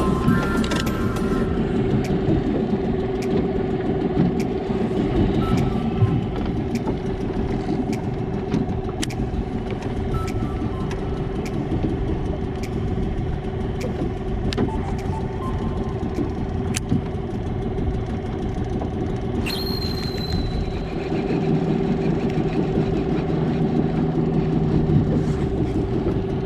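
An engine running steadily, with a constant hum and scattered light clicks. A short high tone sounds about three-quarters of the way through.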